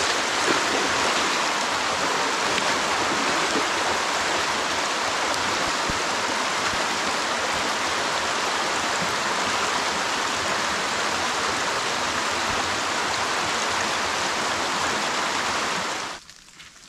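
Rain-swollen bush stream rushing in flood, a steady, loud wash of water that cuts off suddenly near the end.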